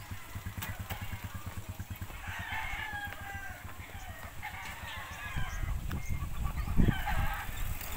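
A rooster crows about two seconds in, one long call, with shorter calls later, over a steady low rumble and a thump near the end.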